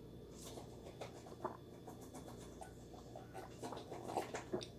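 Faint sips and swallows as juice is drunk from a mug, with a few small soft sounds scattered through.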